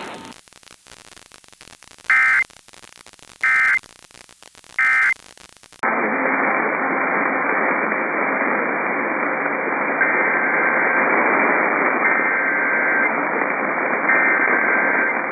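Three short Emergency Alert System SAME data bursts, about a second and a half apart, the end-of-message code closing a warning. Then a steady hiss of weather-radio static, in which three one-second SAME header bursts announcing the next warning sound faintly, a second apart.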